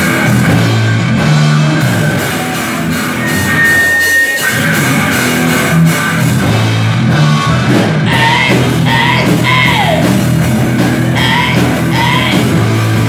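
A live rock band playing loud, with electric guitar and drums. A voice comes in over the band about two-thirds of the way through.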